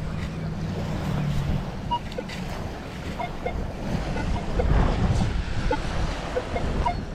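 Minelab X-Terra Pro metal detector sounding short beeps at differing pitches as its coil sweeps over a buried target, against wind buffeting the microphone. A low steady hum runs for the first second and a half.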